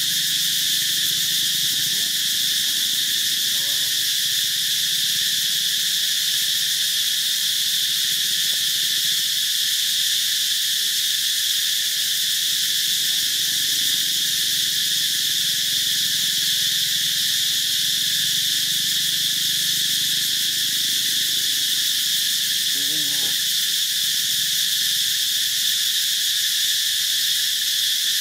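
Steady insect chorus: an even, high-pitched buzzing drone that runs without a break.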